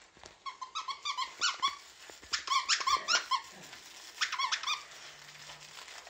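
Squeaker in a plush toy monkey squeaking as a boxer dog bites down on it: three quick runs of short squeaks, the middle run the loudest.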